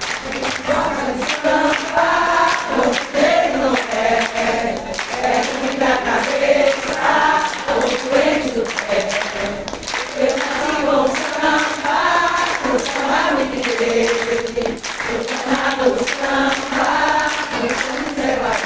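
A group of voices singing together in chorus, with sharp strikes marking a beat beneath the singing.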